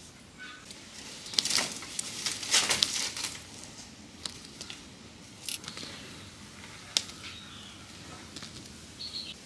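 Dry, papery skin of a red onion crackling and tearing as it is scraped and peeled with a knife, in a dense burst lasting about two seconds, followed by a few scattered sharp clicks.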